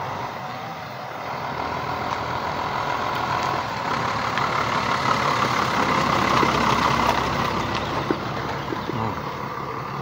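Light dropside truck driving slowly past at close range, its engine growing louder to a peak about six or seven seconds in, then fading as it moves away.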